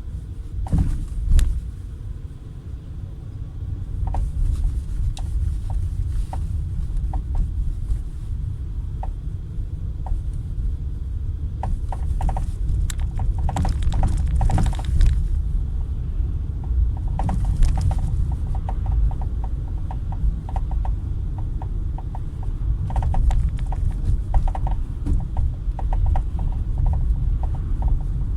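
A 2012 Peugeot 408 on the move, a steady low rumble with many short knocks from the front end coming in irregular runs, thickest in the middle and last third. The knocking is the front-end fault the owner is tracing.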